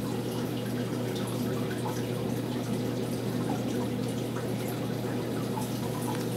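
Aquarium water bubbling and dripping, with small scattered bubble pops over a steady low hum from the tank's equipment.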